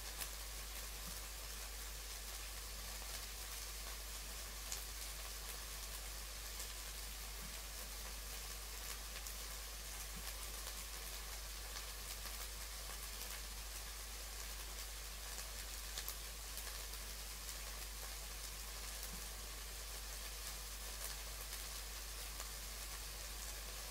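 Chicken and vegetable mince frying without oil in a ceramic-coated frying pan: a faint, steady sizzle with scattered small pops.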